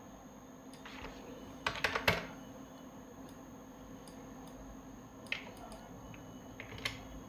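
Scattered keystrokes and clicks on a computer keyboard and mouse. A quick cluster of four or five comes about two seconds in and is the loudest, with single clicks later on. A steady faint hum runs underneath.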